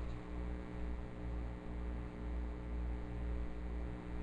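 Steady low electrical mains hum with a few steady higher overtones and a faint hiss. The deepest part of the hum swells and fades unevenly.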